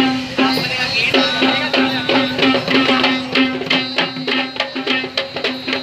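Procession music: drums beaten in a fast, busy rhythm over one steady held note.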